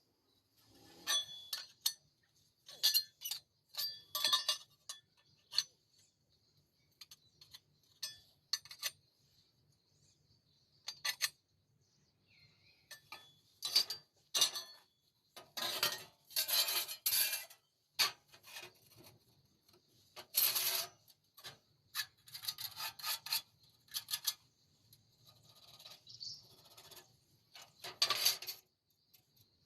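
Steel pieces being handled and worked: irregular metallic clinks and knocks with short scraping strokes, some lasting about a second, over a faint low hum.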